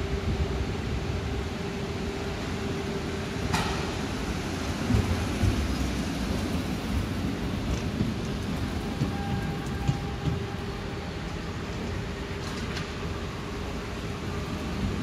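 Tram running along the track: a steady low rumble with a faint steady hum, and one sharp click about three and a half seconds in.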